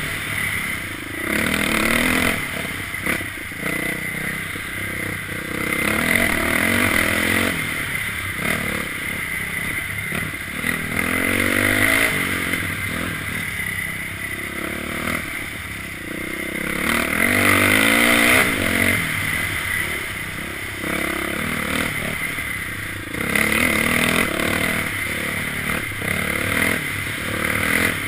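Dirt bike engine revving up and dropping back again and again as the rider rides a rough trail, with rattling and scraping from the bike and the ground, heard from the rider's helmet.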